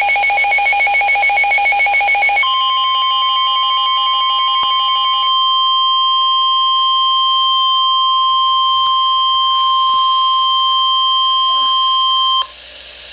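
NOAA Weather Radio Emergency Alert System signal: a harsh, rapidly pulsing buzz of digital SAME header data. About two seconds in, a steady single-pitched 1050 Hz warning alarm tone starts, holds for about ten seconds and cuts off shortly before the end. The tone is the sign of a severe thunderstorm warning about to be read.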